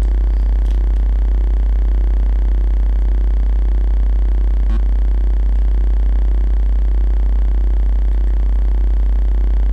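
Steady, loud low hum with a fainter tone pulsing about one and a half times a second, and a single click a little before halfway.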